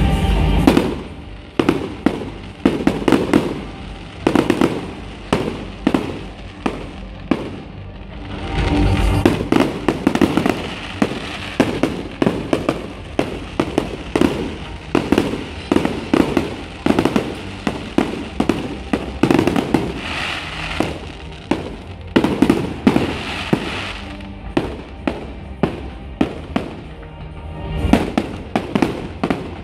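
Fireworks display: a rapid string of sharp bangs and crackling from aerial shells bursting, with deep booms at the start, about nine seconds in and near the end. Music plays underneath.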